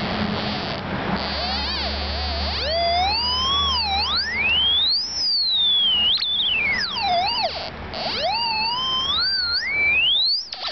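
Audio tone from a VK3YNG Mk4 radio direction-finding sniffer, gliding up and down in pitch as the tape-measure Yagi is swung, the pitch following received signal strength. It climbs steeply near the end as the beam closes in on the hidden transmitter.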